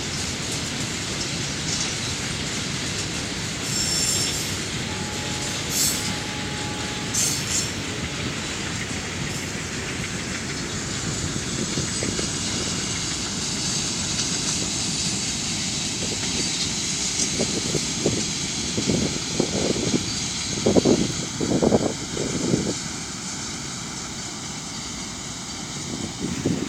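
Mixed freight train rolling past: a steady rumble of wagons with brief high wheel squeals early on and a run of heavy clickety-clack as wheelsets cross rail joints about two-thirds of the way through, easing off near the end.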